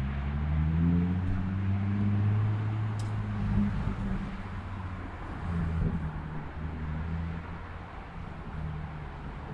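A motor vehicle's engine running close by on the road, its pitch rising over the first second or so and loudest for the first few seconds. It then eases back to a quieter, steady low engine hum as it moves off.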